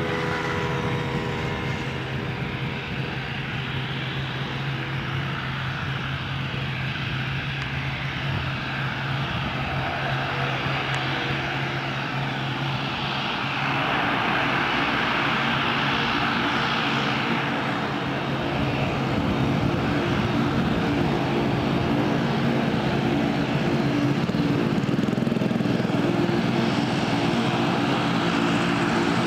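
Twin turboprop engines and propellers of an American Eagle ATR airliner running as it rolls along the runway: a steady propeller drone with a low hum, growing louder about halfway through as the aircraft comes closer.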